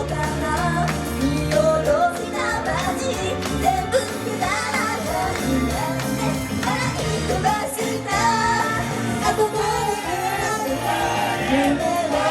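Female J-pop idol group singing live over loud pop music, with a steady beat and bass under the sung melody.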